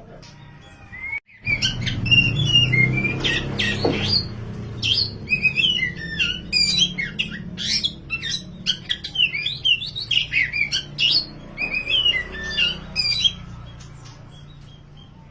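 Kacer (Oriental magpie-robin), dark wulung form, singing a loud, fast song of varied whistled phrases and chatters. The song starts about a second in and dies away near the end, over a steady low hum.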